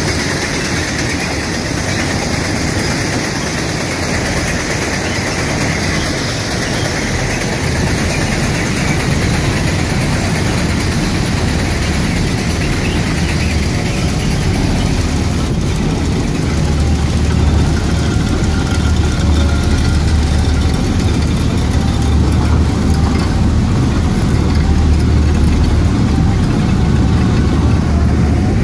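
Track renewal train excavating and renewing the ballast: a loud, steady mechanical din from its engines and digging gear, with a deep hum that grows stronger about halfway through.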